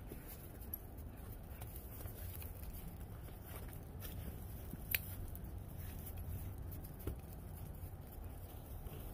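Light footsteps crunching in snow over a low steady rumble, with a sharp click about five seconds in.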